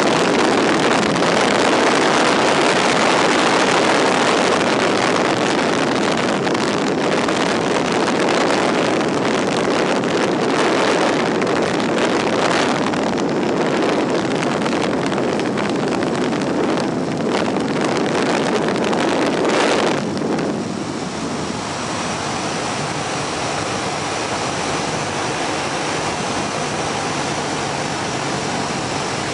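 Wind rushing over the open cockpit of a WACO biplane in flight, with its radial engine running underneath. About twenty seconds in, the noise drops suddenly to a lower, steadier level.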